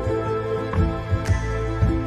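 Background music: sustained notes over a steady low bass, with a few short struck notes.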